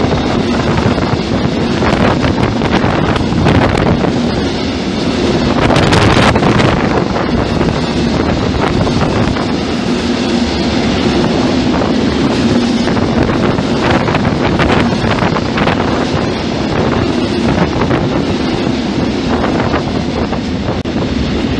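Freight train wagons rolling past close by: a loud, steady rumble of steel wheels on rail, broken by repeated clicks and clatter as the wheelsets pass over rail joints.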